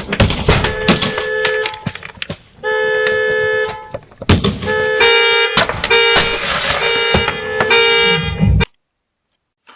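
Car horn honking in repeated long blasts, a steady two-note tone held a second or so each time, with a run of closer blasts in the second half, cutting off suddenly near the end.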